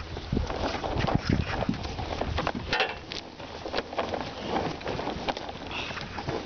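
Heifers eating feed cubes at close range: irregular crunching and chewing, with the shuffle and clop of hooves on hard dirt.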